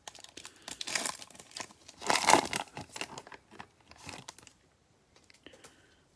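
Foil wrapper of a Panini Mosaic football card pack being torn open and crinkled by gloved hands. There is a dense crackling, loudest about two seconds in, that dies away after about four and a half seconds.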